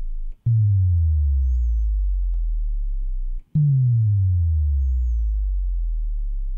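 Logic's ESP software synth playing a dive-bomb bass patch: white noise through a low, highly resonant filter swept down by the envelope, giving a deep pitched tone that glides downward. Two notes start about half a second and three and a half seconds in, each falling steadily for about three seconds into a low rumble.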